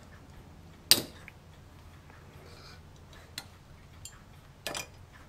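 Sprue nippers cutting a part from a plastic model kit sprue: one sharp snap about a second in, then a few fainter clicks of plastic parts being handled.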